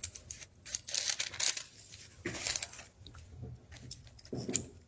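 Soft rustling and handling noises in several short bursts, with a softer, lower sound near the end.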